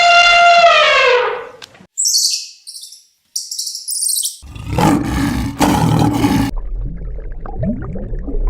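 A string of different animal calls cut one after another. First a long pitched call that falls off at the end, then a burst of high bird chirps, then a loud rough roar starting about four and a half seconds in, followed by lower rumbling.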